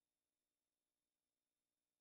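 Digital silence: no sound at all.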